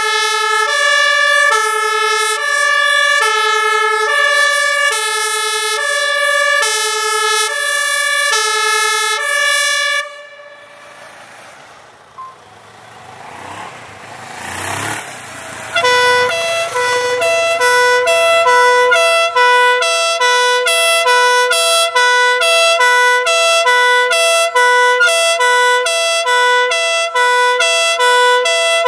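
Fire engine's two-tone siren alternating steadily between a high and a low note, cutting off about a third of the way in. A few seconds of low rumble follow, then a fire-brigade van's two-tone siren starts, switching between its notes faster.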